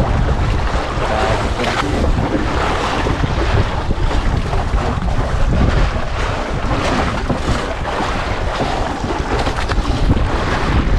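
Steady wind buffeting the microphone, with sea water washing and splashing underneath.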